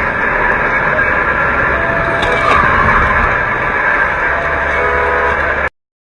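Steady road and engine noise of a car driving on a highway, picked up by a dashcam inside the cabin, cutting off abruptly near the end.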